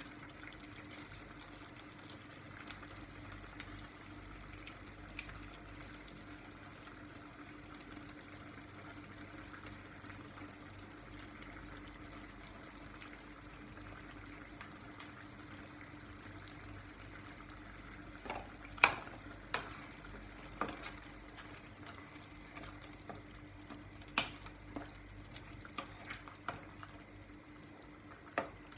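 Meat and tomato sauce cooking in a frying pan, sizzling faintly and steadily. In the second half a wooden spoon stirs the sauce, knocking sharply against the pan several times.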